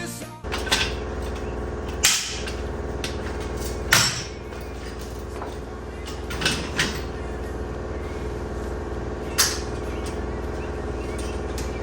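A handful of sharp knocks and clanks, irregularly spaced, from car parts and hand tools being worked on during a front-end teardown, over a steady background hum.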